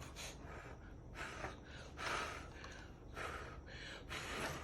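A young child blowing out short, breathy puffs of air, about five in four seconds, while practising blowing.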